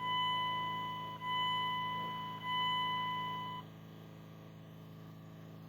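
Dashboard warning chime of a 2002 Dodge Ram Cummins with the key on, sounding three times, each ring about a second long and fading, then stopping a little past halfway. A steady low hum goes on underneath.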